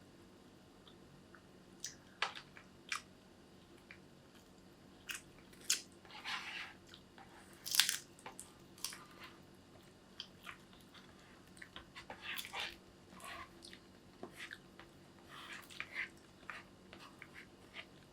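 A person biting and chewing crunchy food close to the microphone: irregular crisp crunches and short mouth noises, the loudest about eight seconds in.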